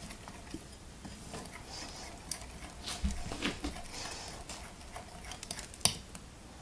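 A spoon stirring pancake batter in a bowl: soft scraping with scattered light clicks of the spoon against the bowl.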